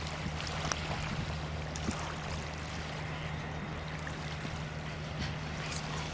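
Steady low engine drone from the departing freighter and its pilot boat, over a constant hiss of water and breeze.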